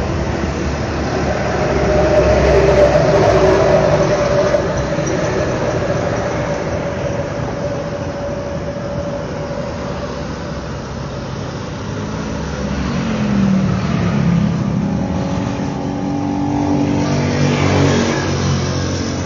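An engine running steadily, its pitch shifting up and down in the second half.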